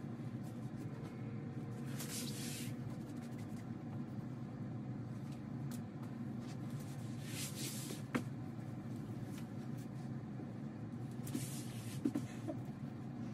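Fabric quilt blocks rustling as they are handled and patted flat onto a design wall: three brief swishes with a couple of light taps. A steady low hum runs underneath.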